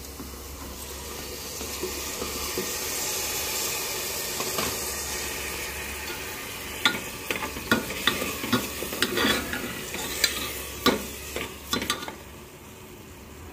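Washed rice and moong dal sizzling in hot fried masala in a pressure cooker, with a steady hiss. From about seven seconds in, a steel spoon stirs the mix, clicking and scraping against the metal pot.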